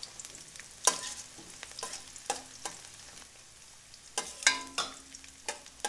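Metal spatula stir-frying vegetables in a stainless steel wok, scraping and clinking against the pan in about ten irregular strokes over a light sizzle.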